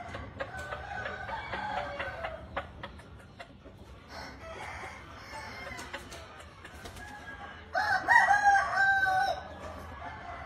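Rooster crowing: one loud, held crow of about a second and a half near the end, after fainter calls and clucks from the flock in the first couple of seconds.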